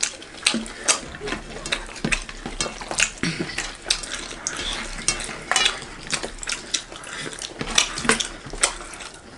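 Hands mixing rice and curry on stainless steel plates while eating by hand: scattered clicks, scrapes and light clinks of fingers and food against metal.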